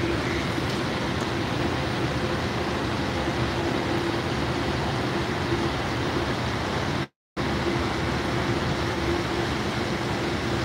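Steady urban background noise of street traffic and a constant machine hum, with no distinct events. The sound cuts out completely for a moment about seven seconds in.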